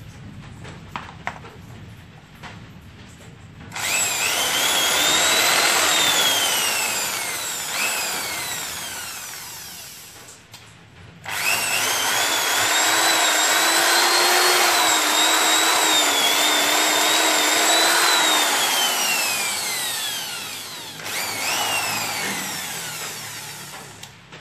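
Corded electric hand drill test-run after its switch was replaced with a forward/reverse one. A few clicks come first, then the motor spins up three times with a whine that rises and falls in pitch as the trigger speed changes. The middle run is the longest.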